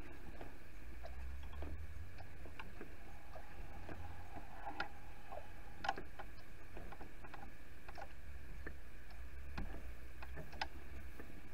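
Master cylinder being bench-bled: irregular small clicks and liquid ticks as the plunger is pushed and brake fluid with air bubbles runs back through the bleed line into the reservoir, over a steady low rumble.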